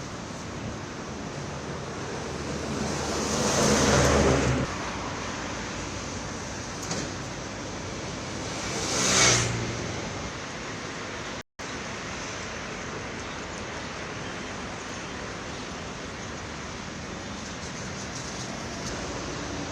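Road traffic: a steady hum of passing vehicles, with two vehicles swelling up and passing close, the first about three to four seconds in and the second about nine seconds in. The sound cuts out for an instant just past halfway.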